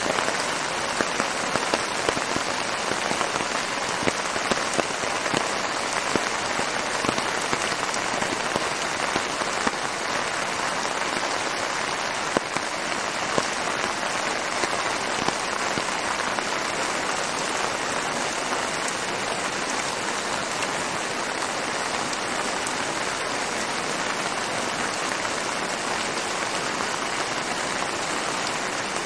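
Heavy rain pouring onto wet streets and pavement: a dense, steady hiss of falling water, with frequent sharper splashes of nearby drops.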